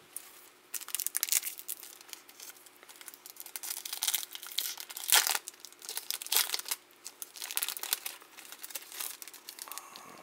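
Foil wrapper of a 2018 Topps Opening Day baseball card pack crinkling and tearing as it is ripped open by hand: a run of sharp crackles, loudest about halfway through.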